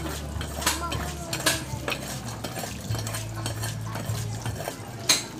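A hand tool scraping and knocking in gravel and soil, digging out around a buried water pipe, in irregular scrapes with the loudest knock near the end.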